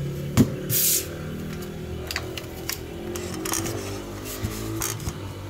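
An AR-15 rifle being handled and set onto a wooden display stand: a sharp knock about half a second in, a brief brushing rustle, then scattered light clicks and taps.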